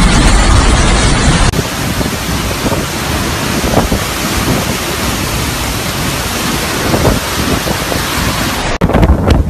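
Hurricane wind and driving rain: a loud, steady rush of noise with gusts buffeting the microphone. The sound breaks off and changes abruptly about a second and a half in and again near the end.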